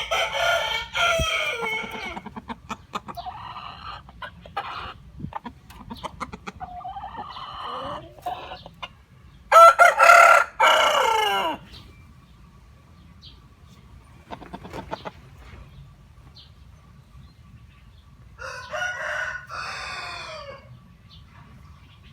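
Gamecock rooster crowing three times, each crow about two seconds long: once at the start, loudest around ten seconds in, and again near the end. Softer, shorter calls come between the crows.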